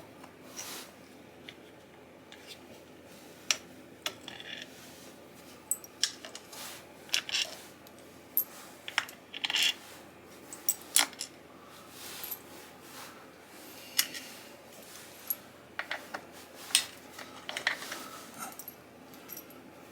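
Hand tools and small steel screws clicking and clinking at irregular intervals as screws are worked out of a motorcycle engine cover, with a few brighter metallic clinks.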